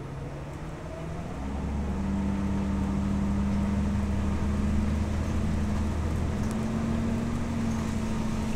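Inside a 2011 New Flyer DE60LFR diesel-electric hybrid articulated bus with an Allison EP50 hybrid drive, under way: a whine rises in pitch at the start, then from about a second and a half in the drivetrain settles into a louder, steady low drone. Near the end the drone steps slightly up in pitch.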